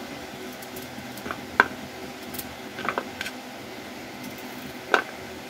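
Kitchen knife cutting peeled elephant foot yam held in the hand, with a few sharp clicks and taps of the knife and yam pieces against a ceramic plate. The loudest come about one and a half seconds in and near the end. A steady low hum runs underneath.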